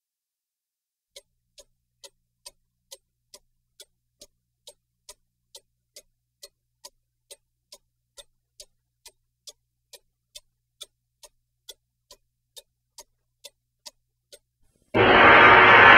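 A clock ticking evenly, about two ticks a second, starting about a second in. Near the end the ticking stops and loud music comes in suddenly.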